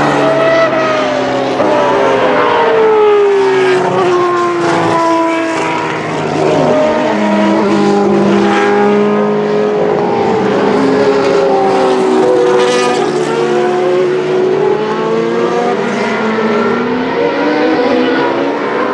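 Several historic racing cars' engines running at once on track, their notes slowly rising and falling and overlapping at different pitches.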